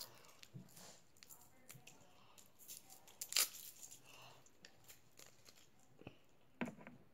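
Candy wrappers crinkling and tearing as chewy candies are unwrapped by hand: scattered soft rustles, with a sharper crackle about three and a half seconds in and another near the end.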